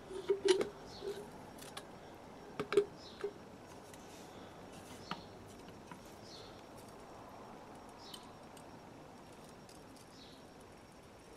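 A removed Toyota Yaris rear shock absorber being worked by hand as its piston rod is drawn out: a few sharp clicks and short low squeaks in the first three seconds, then only faint background with faint high chirps every second or two.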